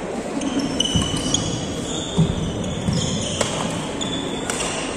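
Badminton doubles rally on a wooden court: rackets strike the shuttlecock with sharp pops, about a second in and twice near the end, among shoe squeaks and footfalls on the court floor.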